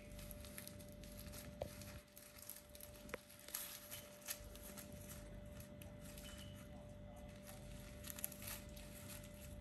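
Faint rustling with scattered light scratches and clicks as four-week-old kittens move about and play, over a steady low electrical hum.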